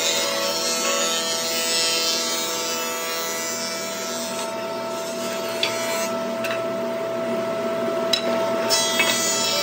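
Grizzly benchtop thickness planer running with a steady whine and the rasp of its cutter head planing purpleheart strips; the high hiss thins for a few seconds in the middle, and a few sharp knocks come from the boards being handled.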